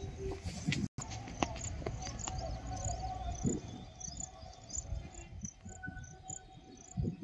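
Faint outdoor ambience: a low rumble with a row of short high-pitched chirps repeating about three times a second, broken by a brief dropout about a second in.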